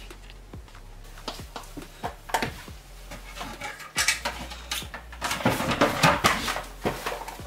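Cardboard boxes and household items being handled and pulled off closet shelves: scraping, rustling and a run of knocks and clatter, busiest and loudest about five to six and a half seconds in.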